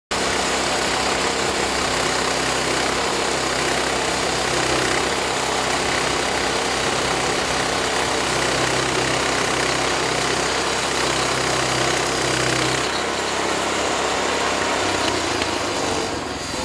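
Portable sawmill's engine running steadily, with a wide hiss over its hum; about thirteen seconds in the deepest part of the sound drops away and the pitch shifts.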